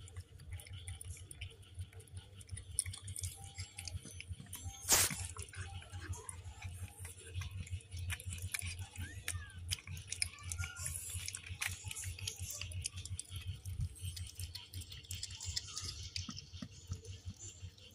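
Mother cat licking her newborn kittens clean: a steady run of wet licking and smacking sounds. A single sharp click about five seconds in.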